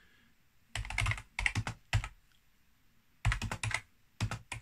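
Computer keyboard being typed on: a quick run of keystrokes about a second in, a pause, then another run of keystrokes near the end.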